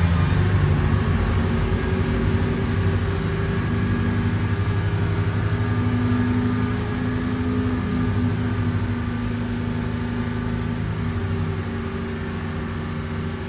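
Twin Volvo Penta KAD300 diesel sterndrive engines running hard as the boat climbs onto the plane. The engine note is steady and eases a little toward the end.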